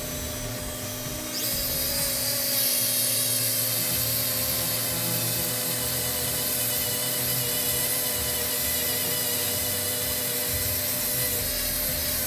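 Small handheld rotary tool with an abrasive stone bit grinding a razor part: a steady motor whine under a grinding hiss that gets louder about a second and a half in, when the bit bites, and then holds steady.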